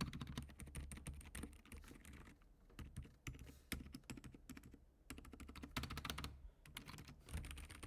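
Typing on an Attack Shark K86 mechanical keyboard fitted with Akko Fairy Silent switches, which are meant to be silent: a quick, quiet run of keystrokes with a few brief pauses.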